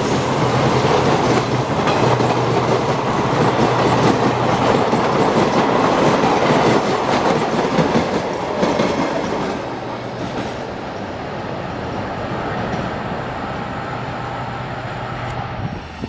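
Coaches of a DMU train rolling past close by, wheels clattering over the rail joints. The sound eases off about ten seconds in.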